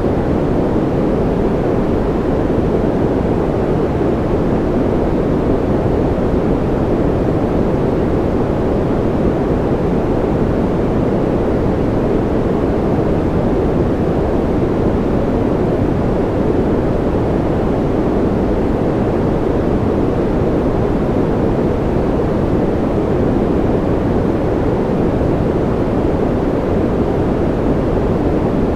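Steady, unchanging rushing noise, deep and muffled with little treble: a continuous rain-style white noise track.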